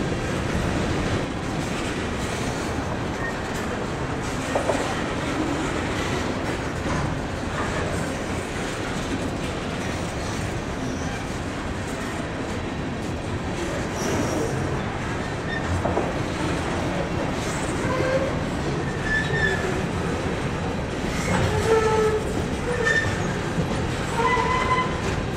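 Empty steel coal hopper cars of a freight train rolling past, with wheels clattering over the rail joints. Brief squeals of steel wheels on rail come in the second half.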